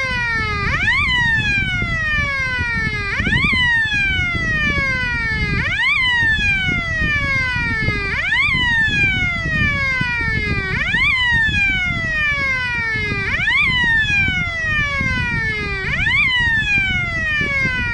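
Emergency vehicle siren wailing in a repeating cycle: a quick rise in pitch, then a slow fall, about every two and a half seconds, over a steady low rumble.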